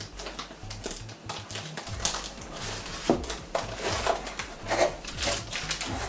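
Packaging and enclosure parts being handled: irregular rustling, scraping and light knocks, busier in the second half, over a steady low hum.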